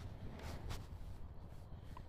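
Quiet outdoor background: a faint steady low rumble, with one light tick about three-quarters of a second in.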